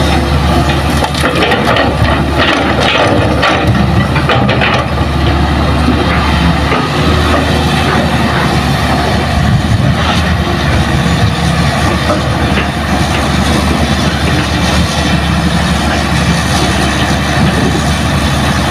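Hitachi hydraulic excavator's diesel engine running steadily as it works, with a clatter of earth and rocks dropping into the steel bed of a dump truck during the first few seconds.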